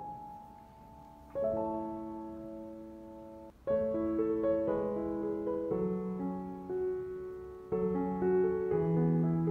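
Slow background piano music: a new chord is struck every few seconds and left to ring and fade.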